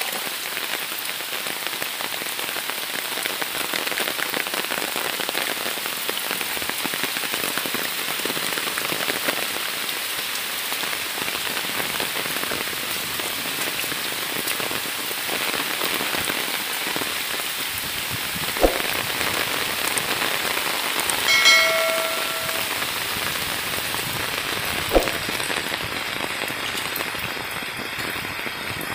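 Heavy monsoon rain falling steadily on foliage and waterlogged ground, a dense, even hiss. Two sharp knocks stand out in the second half, and a short pitched tone with overtones sounds for about a second, about three-quarters of the way through.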